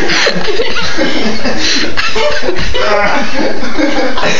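People laughing and chuckling, with bits of indistinct talk.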